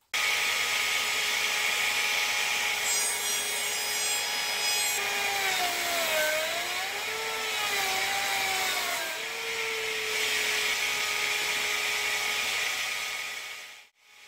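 Table-mounted router running while it mills a groove along a wooden strip fed against the fence. Its pitch sags and recovers midway as it takes the cut, and the sound dies away near the end.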